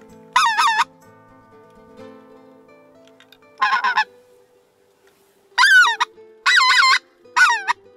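Goose call blown by hand in five short bursts of quick, wavering honks. One burst comes about half a second in, and the last four come in the second half.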